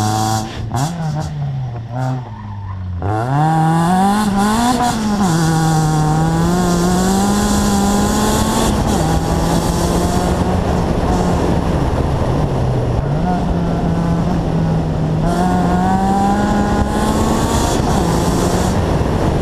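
Rally car engine driven hard on a tarmac stage, heard from inside the car. The revs drop with a few brief sharp cracks early on, climb hard from about three seconds in, then rise and fall through gear changes and climb again near the end.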